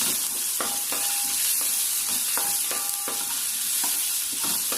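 Raw mango pulp and mustard seeds sizzling in hot oil in a pan: a steady hiss, with a spatula scraping and tapping the pan in short strokes as it is stirred.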